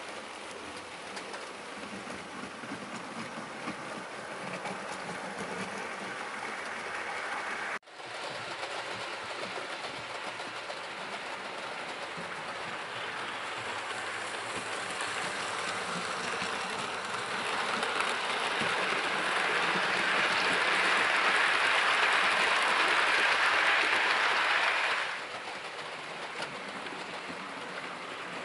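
Hornby OO gauge model train, the LNER W1 locomotive hauling Pullman coaches, running on the layout track: a steady rushing of wheels on rail. It grows louder over the second half and drops away sharply near the end.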